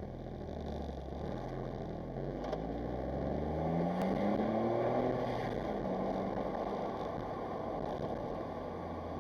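Smart Roadster Brabus's turbocharged three-cylinder engine under way, being driven to test for misfire on new coil packs and plug leads. Its note rises under acceleration about three seconds in, then holds steady over constant road and wind noise.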